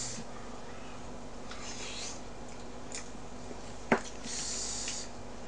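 Quiet eating sounds: short hissy mouth and breath noises several times while chewing spicy braised monkfish and bean sprouts, with one sharp click, like chopsticks on a dish, about four seconds in.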